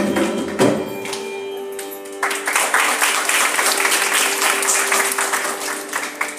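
Two last mridangam strokes in the first second end a piece. An audience then claps for about four seconds over a steady drone.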